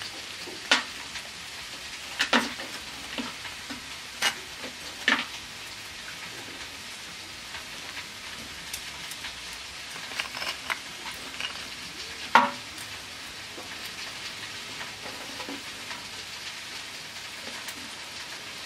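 Rock-hard salt crust and a charred, beer-soaked cotton towel cracking and crunching as metal tongs and fingers break them open on a wooden board. About seven sharp cracks come at uneven gaps, the loudest about twelve seconds in, over a steady hiss.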